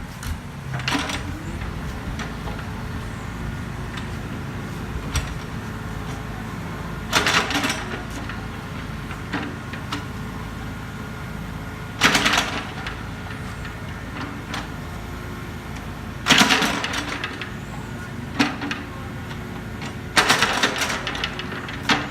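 Diesel engine of an earthmoving machine running steadily, with five short loud bursts of noise coming about every four to five seconds as it works.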